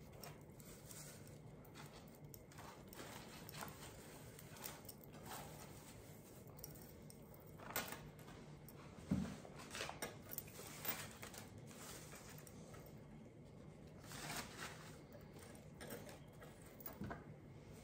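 Faint rustling and crinkling of a plastic bag and artificial flower stems being handled, with scattered light ticks and one louder knock about halfway through.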